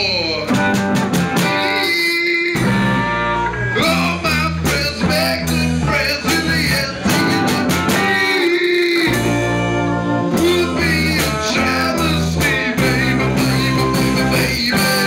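Loud rock music with guitar, bass and a man singing. The band stops briefly twice.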